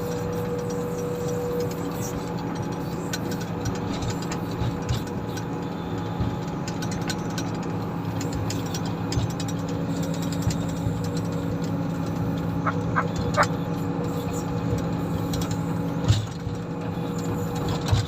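Komatsu motor grader's diesel engine running steadily under work, with scattered knocks and rattles, a few short squeaks about two-thirds through and a sharper knock near the end.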